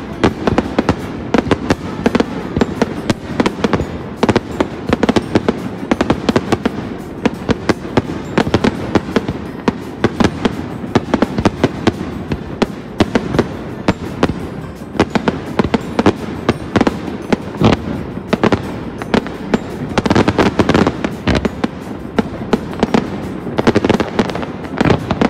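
Aerial fireworks display: a continuous barrage of many sharp bangs and crackles each second, heaviest about twenty seconds in and again near the end.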